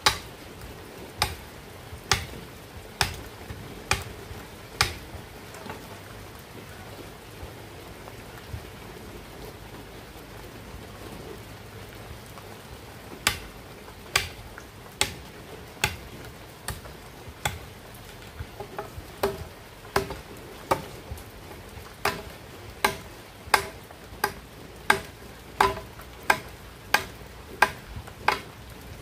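Machete blade chopping into a bamboo pole: sharp strikes about one a second, a pause of several seconds, then a long run of steady strikes that quicken slightly near the end.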